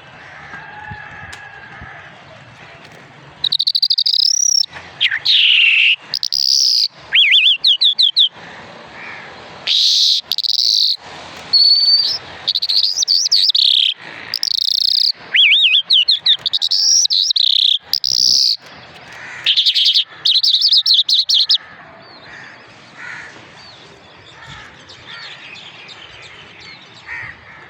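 Lark singing a loud, varied song of short phrases: whistled rising and falling glides and rapid trills, repeated with brief pauses. The song starts a few seconds in and stops about three-quarters of the way through, leaving softer background chirping.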